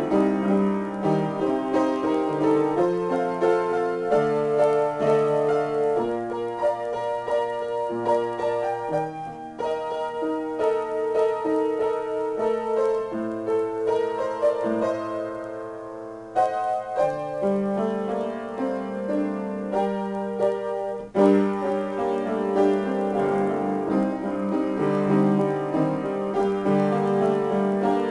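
Solo piano improvisation: held chords and melody notes ringing into one another, thinning to a quiet passage about halfway through, then coming back in with a sudden loud chord about three quarters of the way through.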